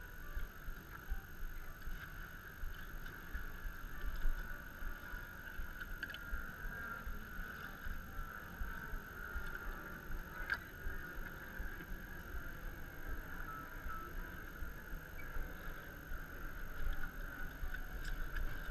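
Boat motor running steadily with a constant whine, over a low uneven rumble, with a few faint clicks.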